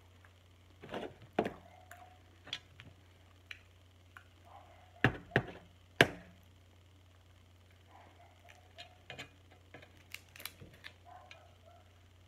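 Snow crab leg shells being cracked and snapped apart by hand: a series of sharp cracks, the three loudest close together just past the middle, with softer clicks and crackles of shell around them.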